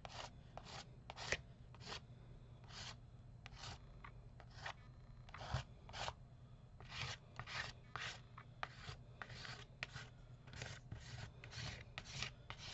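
Fingers rubbing gold texture paste onto the paper of a collage page in short, scratchy strokes, spaced out at first and coming faster in the second half.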